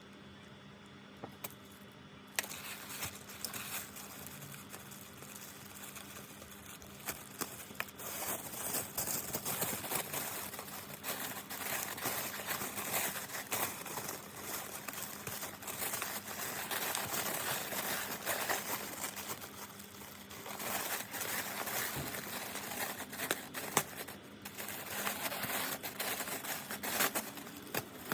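Parcel packaging being unwrapped by hand: plastic and paper crinkling and tearing in a steady crackle, fuller from about eight seconds in.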